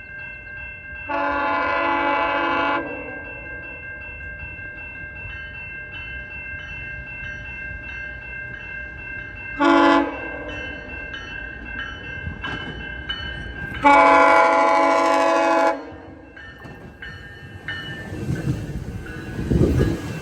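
GO Transit cab car's horn sounding three blasts: long, short, then long, over a steady high-pitched whine. Near the end the low rumble of the train rolling past builds up.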